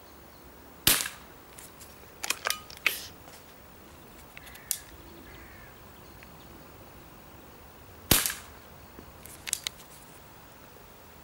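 Weihrauch HW40 (Beeman P3) single-stroke pneumatic air pistol fired twice, each shot a sharp crack, about seven seconds apart. Each shot is followed a second or two later by a cluster of mechanical clicks and clacks as the pistol's cocking aid is worked for the next shot.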